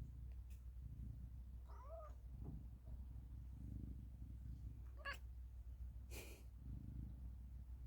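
Domestic cat making short chirping calls at birds it is watching: a call that rises and falls about two seconds in, a shorter one about five seconds in, and a brief breathy huff just after six seconds.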